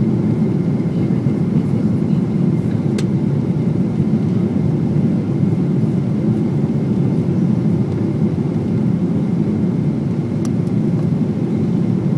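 Steady cabin noise inside a Boeing 777 on final approach with flaps extended: the engines and airflow make a low, even rumble. Two faint clicks come about 3 and 10 seconds in.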